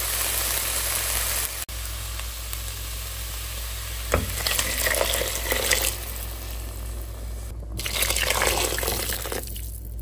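Diced vegetables sizzling in a hot pot as water is poured in, hissing and bubbling as it hits the hot pan, with a wooden spoon stirring.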